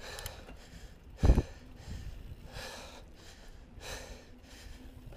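A tired mountain biker's heavy breathing, a hard breath about every second, with one dull thump a little over a second in.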